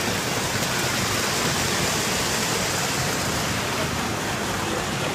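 Steady rushing rumble of a model train running on the layout's metal track.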